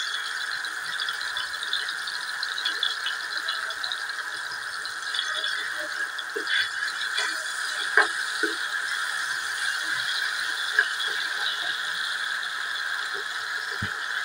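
Chopped tomatoes and cumin seeds sizzling and crackling steadily in hot oil in a stainless-steel pan. A steel spoon stirs and knocks against the pan a few times, most clearly about eight seconds in and near the end.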